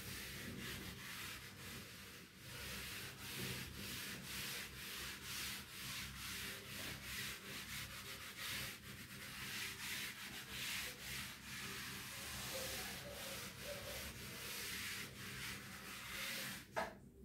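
A felt board duster wiped back and forth across a chalkboard, a scratchy rubbing in repeated strokes as the chalk writing is erased. Near the end there is one short, sharp sound, the loudest moment.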